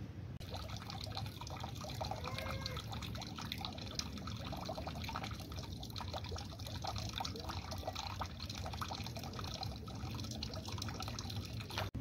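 Water running from a wall tap into a plastic bucket that is already partly full, a steady splashing trickle as the bucket fills.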